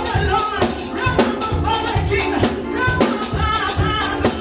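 Live church praise music: a drum kit keeping a steady beat under singing voices, with tambourine.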